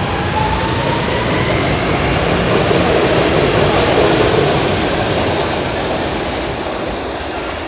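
SEPTA Adtranz M-4 subway train accelerating out of the station: a loud rumble of wheels on rail, with a rising motor whine in the first second or so. The rumble peaks as the last cars pass and fades over the last few seconds.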